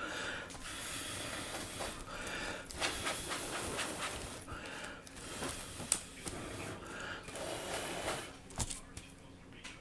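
Soft, irregular scraping and rustling of hands working on a tablet's frame, with a few small sharp clicks.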